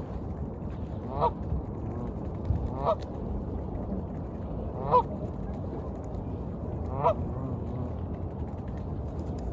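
A duck quacking, four single calls about two seconds apart, over a steady wash of waves.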